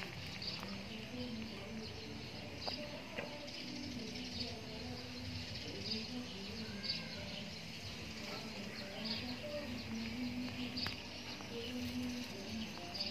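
Birds chirping, short high calls repeated about once a second, over a low steady drone.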